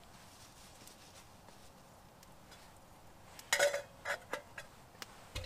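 Metal camp utensils and cookware clinking: a short cluster of clinks about three and a half seconds in, followed by a few lighter clicks.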